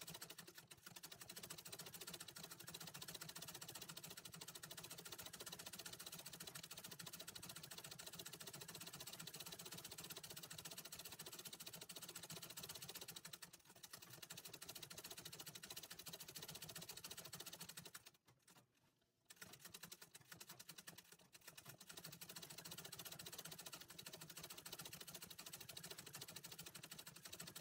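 Antique treadle sewing machine stitching embroidery: a fast, even run of needle strokes through fabric in a hoop. It dips briefly about halfway, stops for about a second two-thirds of the way through, then runs again.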